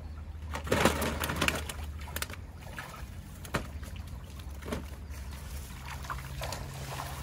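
Shallow stream running over rocks, with a few sharp knocks and rustles as tilapia are worked out of a nylon gill net and dropped into a plastic sack.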